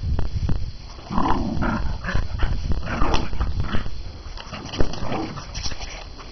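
A dog growling in play as it tugs and shakes a blanket, in rough, uneven bursts that are loudest from about a second in.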